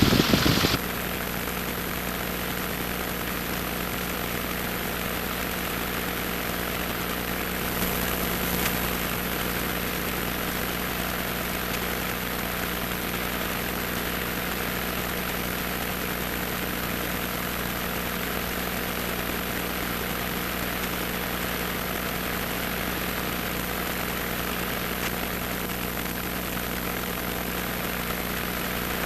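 Cessna 150's four-cylinder Continental O-200 engine and propeller running steadily at low power, heard from inside the cabin, with a slight swell about 8 seconds in.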